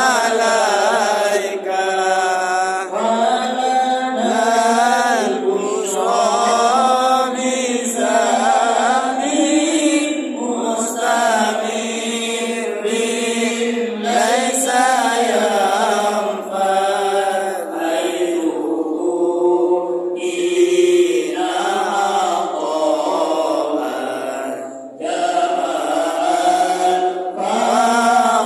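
A congregation of men chanting devotional verses together in unison: a melodic group chant in long phrases with brief pauses between them.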